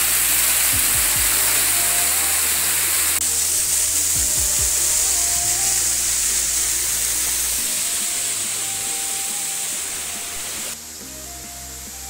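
Rushing waterfall noise mixed with background music of held bass notes and a simple melody. Near the end the water noise drops off abruptly and the music carries on.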